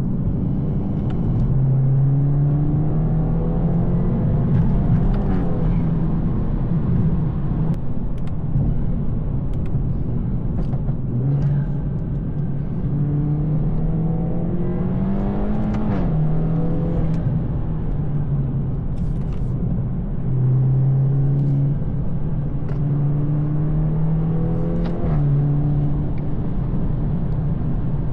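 BMW 220i's turbocharged B48 two-litre four-cylinder, on a stage 2 tune with a free-flowing downpipe and M240i exhaust, pulling gently through the gears. The engine note climbs slowly and drops at each upshift, three or four times, over steady road rumble.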